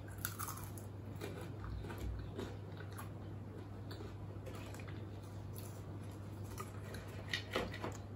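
Close-miked chewing of a crisp, syrupy jalebi: small crunches and wet mouth clicks, with a few louder crackles near the end. A steady low hum runs underneath.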